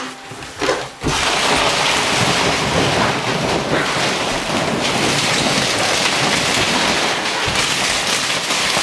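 Loud, steady rustling and rubbing of thick inflatable vinyl close against the microphone as a person crawls around inside a giant inflatable ball. It starts abruptly about a second in.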